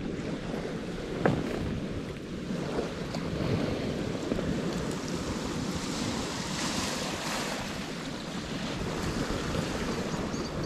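Small waves washing onto a harbour beach, with wind rumbling on the microphone. One sharp click about a second in.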